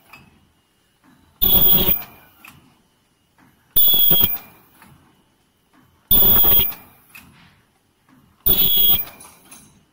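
Paper popcorn-bucket forming machine cycling, with a loud burst of sound about every two and a half seconds. Each burst lasts about half a second and mixes a hiss with a shrill tone, with quiet gaps between.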